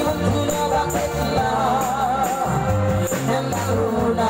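Live band music: a woman singing through a microphone over drums and a bass line, with a held, wavering note about halfway through.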